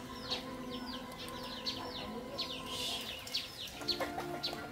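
Birds chirping: rapid, short falling chirps, about three or four a second.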